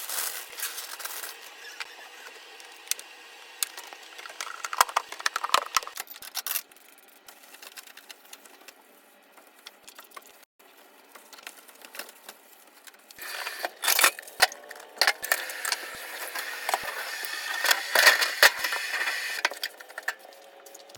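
Household cleaning sounds: objects being handled and rubbed, with scattered clicks, taps and scraping, quieter in the middle and busier in the last third.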